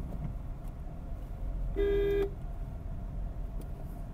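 A car horn gives one short honk, about half a second long and steady in pitch, a little under two seconds in. Beneath it runs the steady low rumble of the car driving, heard from inside the cabin.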